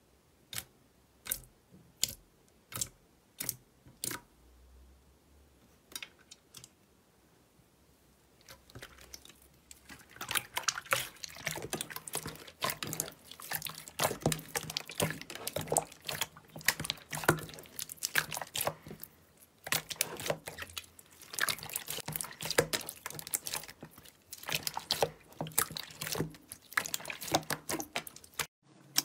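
Clear slime being worked by hand: separate sticky pops about once a second at first, then, from about a third of the way in, a dense run of wet squelching and crackling pops as the slime is squeezed and kneaded.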